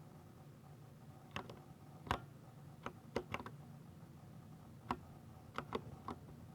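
Keystrokes on a 60% mechanical keyboard with Ducky silver switches: about ten sharp key clicks at an uneven pace, some in quick runs of two or three, with pauses between.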